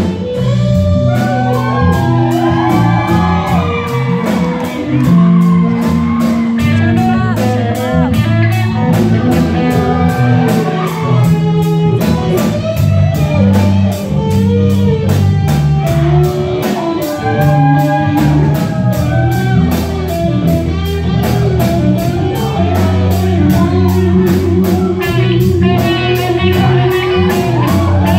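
Live rock band playing an instrumental passage: electric guitars play lead lines with bending notes over bass and a steady drum beat with cymbals.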